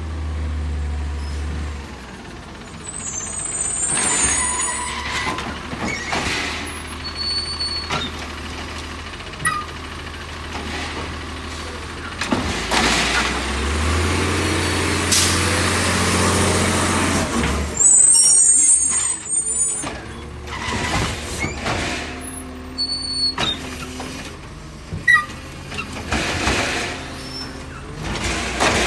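Labrie Automizer side-loader garbage truck working at the kerb: its natural-gas engine runs steadily and rises for several seconds in the middle, with short air-brake hisses and a few sharp knocks.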